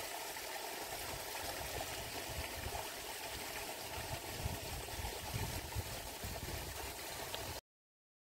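Steady outdoor background hiss with irregular low rumbles, cutting off suddenly near the end.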